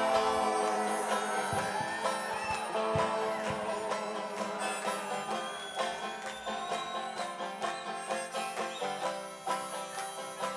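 Banjo playing a quick plucked instrumental passage of a live song, with guitar underneath.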